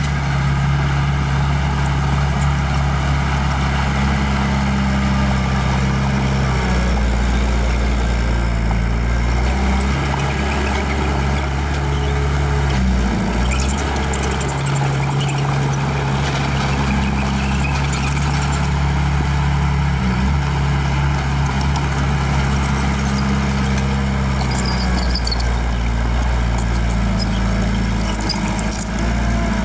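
Small bulldozer's diesel engine running under changing load, its pitch dropping and rising every few seconds, with bursts of metallic clatter in places.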